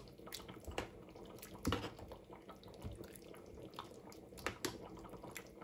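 Metal spoon stirring thick chilli in a stainless steel saucepan: faint wet squelches with scattered light clicks of the spoon against the pan.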